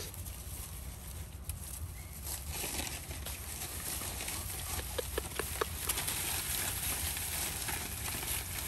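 Dogs eating, with scattered small clicks and crunches that bunch together about five seconds in, over a steady low rumble.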